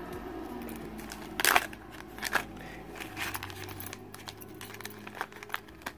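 Clear plastic lure packaging being handled: rustling and crinkling with scattered short clicks, the loudest about one and a half seconds in.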